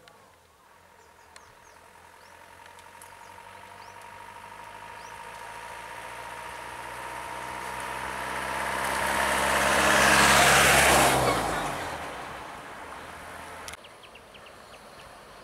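Mitsubishi light truck driving past at close range: its engine grows steadily louder, peaks about two-thirds of the way in, drops in pitch as it goes by, then fades.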